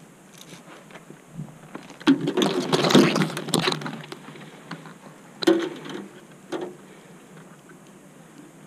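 A tree climber shifting in his harness: metal climbing hardware clinking and rope and branches rustling. There is a burst of clatter from about two to four seconds in, then two short clatters a little later.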